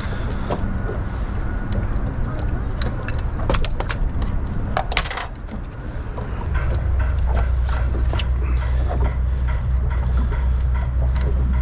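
Knocks and clatter of a freshly caught sheepshead being handled on a small boat's deck, over a steady low rumble that grows louder about halfway through.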